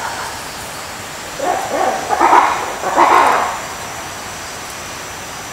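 A lemur calling: a short series of calls from about one and a half to three and a half seconds in, loudest near two and three seconds in.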